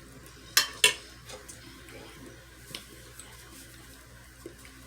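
Two sharp clinks of dishware or cutlery close together about half a second in, then a few faint light ticks.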